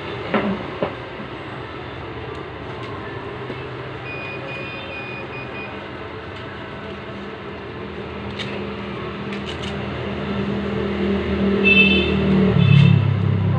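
A motor vehicle engine running over steady background noise, growing louder with a rising engine note about three-quarters of the way through.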